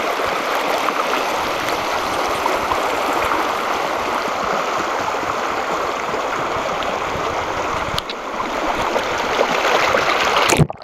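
The Virgin River's shallow current running over rocks, a steady rushing noise. About eight seconds in there is a click, and the water gets a little louder and fuller. The sound cuts off abruptly just before the end.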